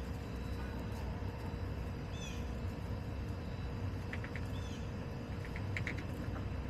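Backyard hens foraging in their run: a few short, high chirpy calls and quick clusters of short clucks about four and six seconds in, over a steady low outdoor rumble.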